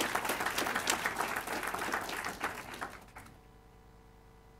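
Audience applauding at the end of a talk, the clapping dying away about three seconds in to a quiet room.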